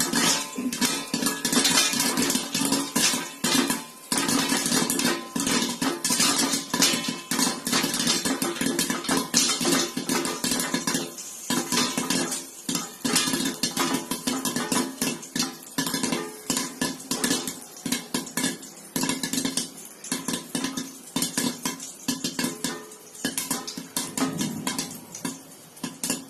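Popcorn kernels popping fast inside a pot covered with a plate, the pops knocking against the pot and plate. The popping thins out toward the end as the batch nears done.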